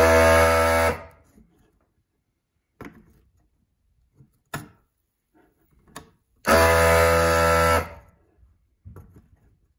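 Vacuum desoldering gun's built-in pump running in two bursts of about a second each, the first at the start and the second about six and a half seconds in, as the trigger is pulled to suck molten solder off header-pin joints. A few faint clicks come between the bursts.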